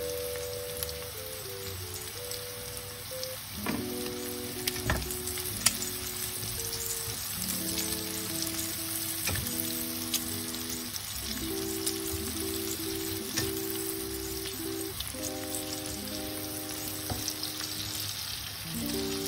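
Chopped onion, capsicum, corn, sausage and bacon sizzling in a frying pan as knobs of butter melt in. A spatula knocks and scrapes against the pan a few times in the first half. Soft background music with held notes plays under it.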